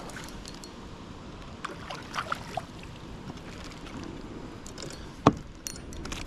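Light clicks and knocks of fishing tackle and a kayak hull over a steady rush of creek and wind, with one sharp knock about five seconds in, while a small hooked bass is being brought into the kayak.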